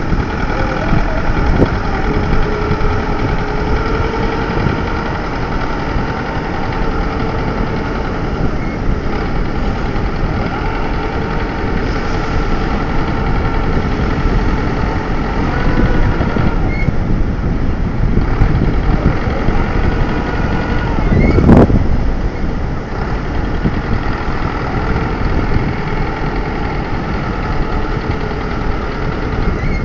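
Tractor engine running steadily, with a brief loud surge about two-thirds of the way through.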